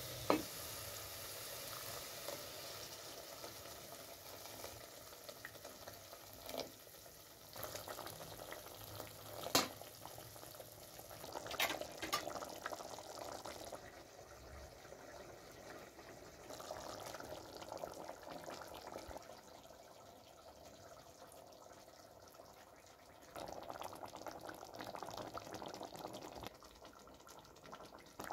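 Chopped herbs sizzling in an aluminium pot as a wooden spoon stirs and scrapes them, with a few sharp knocks. Later the herb stew bubbles at a simmer.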